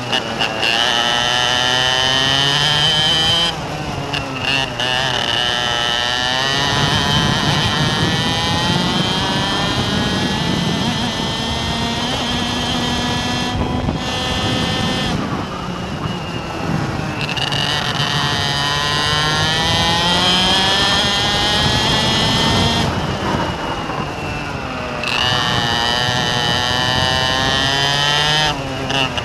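A vehicle engine running, its pitch rising and falling several times as it speeds up and slows down, with a noisy rush underneath.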